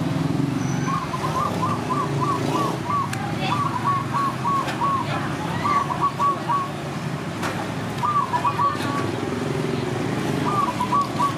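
A bird calling in short phrases of quick, even notes, about four a second, repeated several times with pauses between, over a steady low rumble of street traffic. Two sharp clicks stand out, about three seconds in and again past the middle.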